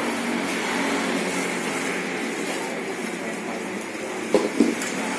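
A steady, machine-like hum and rush with faint steady tones, broken by two short sounds about four and a half seconds in.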